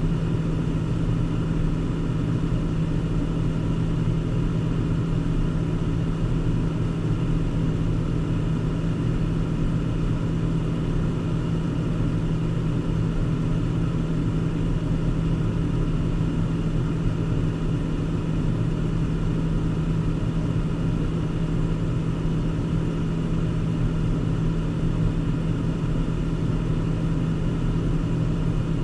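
Car driving, its engine and tyre noise heard as a steady low drone from inside the cabin.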